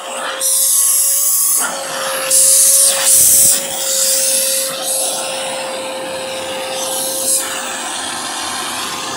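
Vacuum cleaner running through a hose and nozzle: a steady whine under a rushing air hiss that surges louder a few times in the first few seconds as the nozzle is worked over a cat's fur, then runs evenly.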